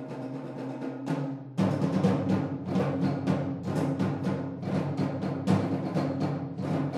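Wind band playing live, sustained chords over a fast, steady beat of drum strokes. The full band comes in louder about one and a half seconds in.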